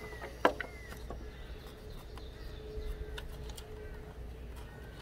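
Hands handling ignition coil packs on the engine: one sharp click about half a second in, then a few fainter clicks and knocks as a coil is lifted out and the next is worked on.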